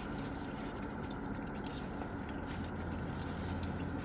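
Steady low hum and hiss of a running car heard inside its cabin, with faint chewing.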